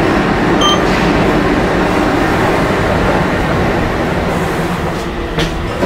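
Steady loud rumble of a train in the railway station, heard from inside the elevator car. A short electronic elevator chime sounds about half a second in, and a faint click comes near the end.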